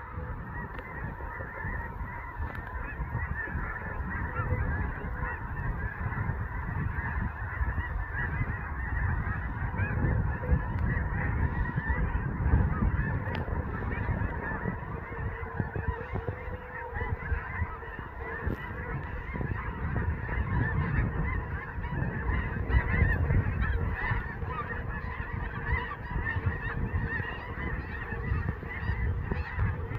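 A large flock of snow geese flying overhead, many birds calling at once in a dense, continuous, high-pitched honking chatter over a low rumble.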